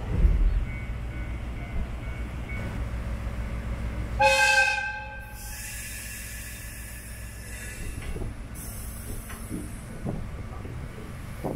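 Diesel-hauled Norokko train moving off slowly with a low engine rumble, and a single horn blast about four seconds in lasting about a second. The rumble drops after the horn.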